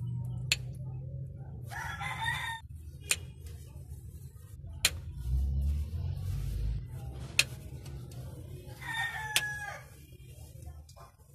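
A rooster crows twice, about two seconds in and again near the end, over a low steady hum. About five sharp metallic clicks, the loudest sounds, come at uneven intervals from a socket wrench working the rocker-arm bolts on the Isuzu 4HG1 diesel's cylinder head.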